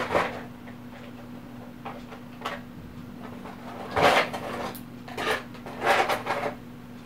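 Handling noise as fingers turn a small plastic miniature: about five short rubbing and knocking sounds, the loudest about four and six seconds in, over a steady low hum.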